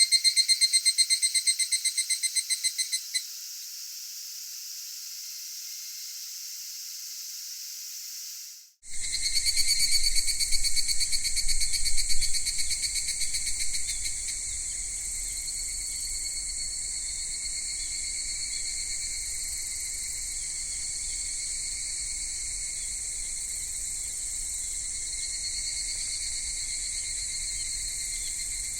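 Cicadas singing in high, ringing tones: a rapidly pulsing call stops about three seconds in, leaving a steadier buzz. After a brief break near nine seconds, another pulsing call swells and settles into a steady cicada chorus.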